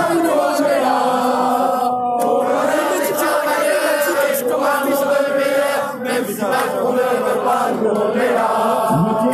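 A large crowd of protesters chanting together in unison, loud and sustained.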